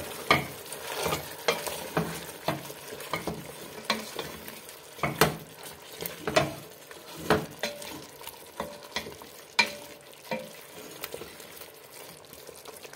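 A wooden spoon stirring chicken pieces with paprika and garlic in a metal pot, its strokes scraping and knocking on the pot every half second to a second, over the sizzle of the food frying in the fat.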